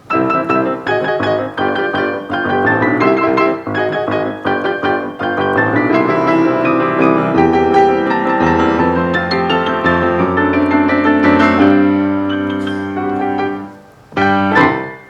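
Small instrumental ensemble with piano playing the closing bars of a Christmas arrangement: quick repeated piano chords give way to long held notes that fade out, then one short final chord just before the end.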